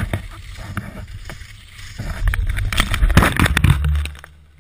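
Skis sliding over snow with wind rushing on the camera microphone. About two seconds in comes a louder jumble of knocks and scrapes as the skier crashes and the camera tumbles into the snow, then it dies away.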